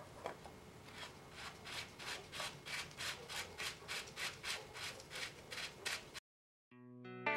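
Threaded bottom bracket cup being screwed by hand into a carbon bike frame's metal-threaded bottom bracket shell: a rhythmic rasping, about four strokes a second, that cuts off suddenly near the end. Electric guitar music follows.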